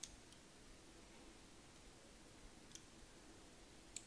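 Near silence with a few faint, short metallic clicks of a small screwdriver against the steel claw mechanism of a Thorens semi-automatic petrol lighter.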